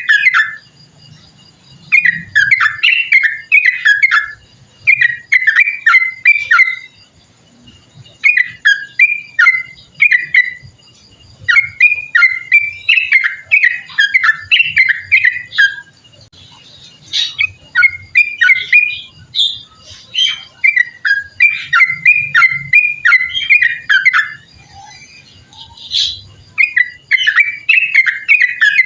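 Yellow-vented bulbul singing in repeated phrases of quick, bubbly, warbling notes, each phrase lasting a second or few, with short pauses between them.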